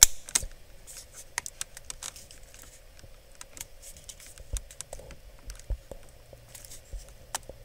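Small plastic clicks, taps and scrapes as the wiring connector is worked off the back of a VW Golf mk4 headlight switch, its two locking tabs squeezed in; a sharp click at the very start is the loudest, and the rest are scattered irregularly over several seconds as the connector resists.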